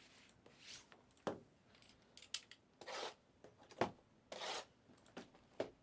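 Wrapping on sealed trading-card boxes being cut and handled: a series of short scraping swishes and sharp clicks.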